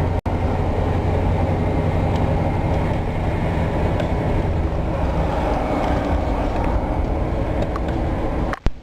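Car driving, with a steady low engine and road rumble heard from inside the cabin. The sound cuts out briefly twice, just after the start and near the end.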